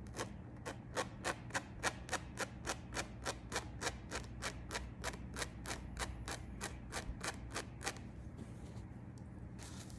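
Tweezers plucking hairs from a lace frontal wig, a rapid, even run of small clicks about three to four a second that stops after about eight seconds.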